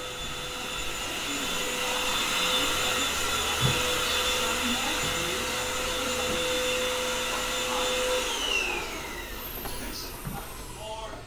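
Vacuum cleaner running with a steady motor whine, louder through the middle, then switched off about eight seconds in, its whine falling in pitch as the motor winds down.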